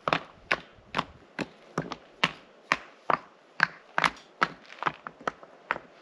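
Stones knocking together as rocks are set and stacked into a campfire ring, a steady run of short, sharp clacks about two a second.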